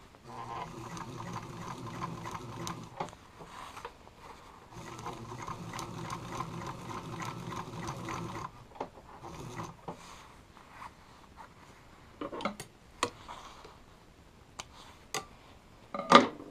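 Pfaff 160 sewing machine running, stitching through a heavy coat in two steady runs of about three and four seconds with a short pause between. After the runs come scattered clicks and knocks of handling, the loudest a sharp knock near the end.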